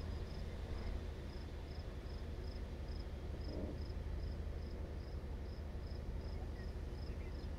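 An insect chirping steadily, short high chirps at about two to three a second, over a low steady rumble.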